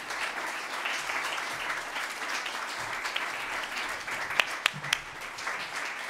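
Audience applauding, with a few sharp knocks close to the microphone near the end.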